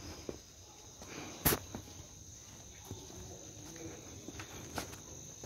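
A few scattered footsteps and clicks on a stone floor, the sharpest about one and a half seconds in, over a faint steady high-pitched hum.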